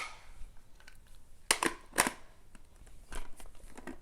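Toy pieces clicking and knocking as they are fitted back into a toy puzzle box: two sharp clicks about a second and a half in, then a few fainter taps near the end.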